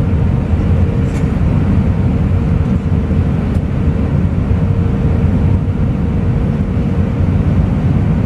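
Steady low rumble of an airliner's engines and rushing air, heard from inside the passenger cabin on final approach, with a faint steady hum running through it.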